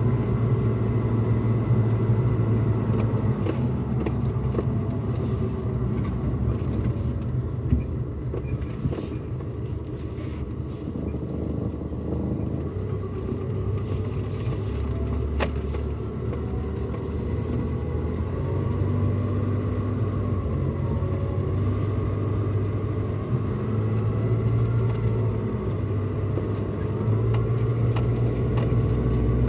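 Pickup truck cabin noise while driving: a steady engine and road rumble whose low tones swell and ease a little as the engine load changes, with scattered light clicks and rattles.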